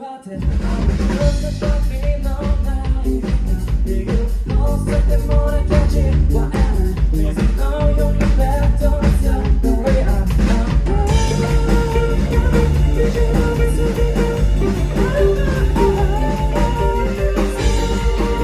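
Live rock band playing: drum kit, bass and guitar come in together at full volume right at the start after a brief lull, with singing over them.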